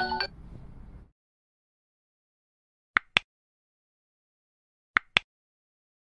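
A marimba-like music tune ends in the first second, leaving dead silence. The silence is broken twice by a pair of short, sharp clicks, about two seconds apart.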